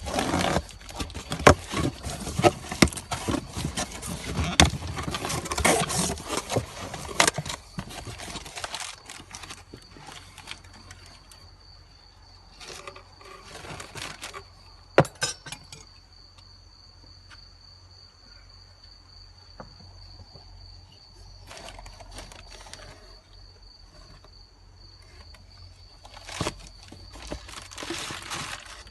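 Metal clicks, knocks and rattles of hand tools and car parts being worked, dense and loud for the first several seconds, then sparse, with a faint steady high whine in the background from about halfway.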